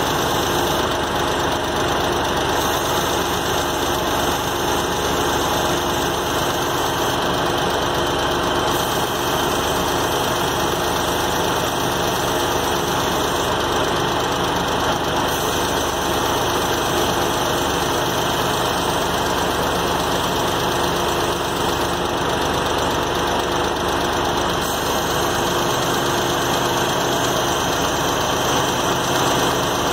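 Refrigerant hissing steadily as it is vented out of a car's AC system through a manifold gauge set, purging the old charge before a refill. The car's engine idles underneath.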